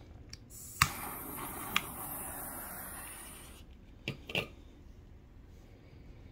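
Refillable butane torch lighter firing with a steady hiss for about three seconds, torching cherry wood chips in a cocktail smoker's chamber. A sharp click sounds near the start of the hiss and another about a second later. Two light knocks follow about four seconds in.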